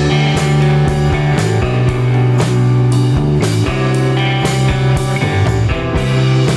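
Instrumental background music with a steady drum beat and sustained low notes.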